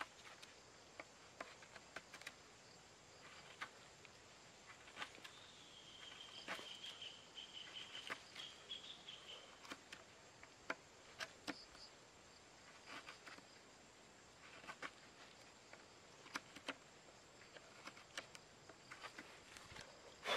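Knife blade shaving and cutting into a wooden stick in short, faint strokes and clicks. A steady high insect hum runs underneath, with a high trill from about six to nine seconds in.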